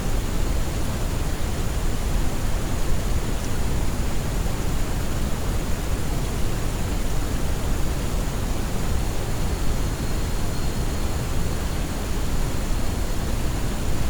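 Steady soft noise, heavier in the low end than in the highs, like pink noise, unchanging throughout.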